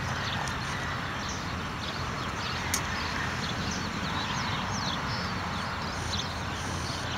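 Outdoor ambience: a steady low rumble of wind on the microphone, with small birds chirping in many quick falling notes. There is one sharp click a little under three seconds in.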